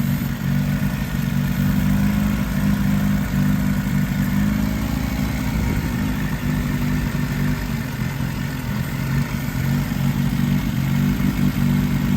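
Toyota 22R four-cylinder engine idling steadily.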